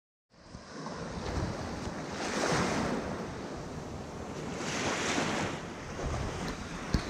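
Small sea waves breaking and washing up a sandy shore, two swells about two and a half seconds apart, with a sharp click near the end.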